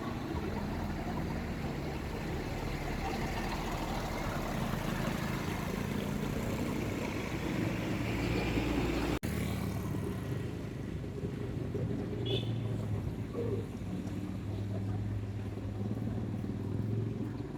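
Motor vehicle engine running steadily under road and wind noise, broken by a brief dropout about nine seconds in.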